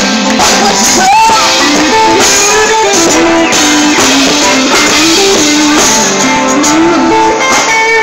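Live street music: a singer's melody over guitar accompaniment, loud and steady.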